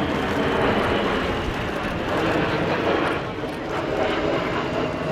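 Boeing KC-135R Stratotanker flying past, its four CFM56 turbofan engines giving a steady jet noise.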